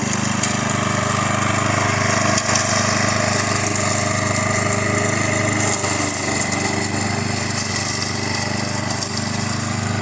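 Walk-behind lawn mower's small engine running steadily under load as it is pushed back and forth cutting grass.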